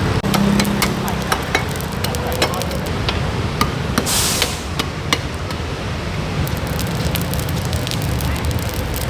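Charcoal crackling and popping under grilling chicken, with a brief hiss about four seconds in, over the steady rumble of road traffic.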